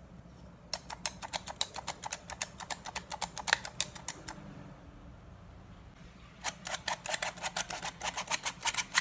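Hand-operated metal flour sifter working flour through its mesh, clicking rapidly at several clicks a second. The clicking stops for about two seconds midway, then starts again.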